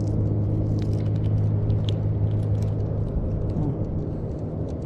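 A steady low motor hum, with a few faint clicks as fishing pliers work a hook out of a fish's mouth.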